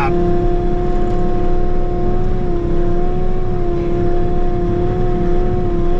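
Bobcat compact diesel engine running steadily at about 2200 RPM, held below full throttle, with a strong steady whine over a low rumble that wavers slightly in pitch.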